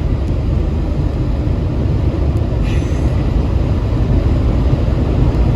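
Steady low rumble of a moving vehicle: road and engine noise, with a brief hiss about two and a half seconds in.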